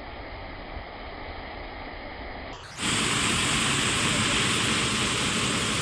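Waterfall rushing steadily, jumping suddenly louder and brighter about three seconds in.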